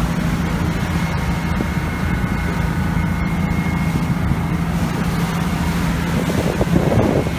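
Tour boat's engine running with a steady drone while under way, over a wash of water and wind noise.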